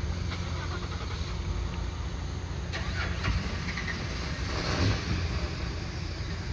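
A car engine running at a steady idle, a low even hum.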